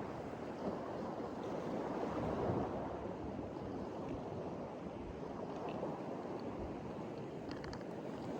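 Steady rushing ambience of small lake waves and wind, with a few faint ticks near the end.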